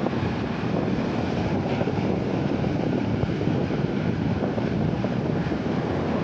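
Wind buffeting the microphone over the steady wash of sea surf on a beach.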